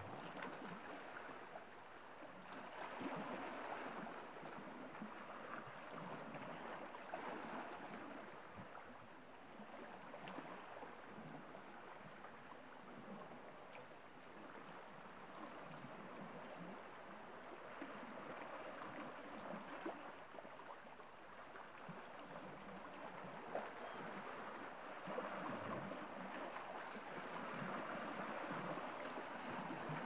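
Small sea waves lapping and splashing against shoreline rocks, a gentle wash that swells and ebbs every few seconds, with small clicks of water among the stones.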